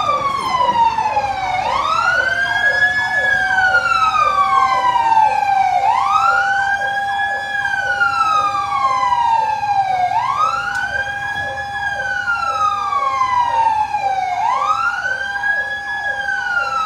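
Fire truck siren wailing, each cycle rising quickly and then falling slowly, repeating about every four seconds, with a faster pulsing siren tone underneath.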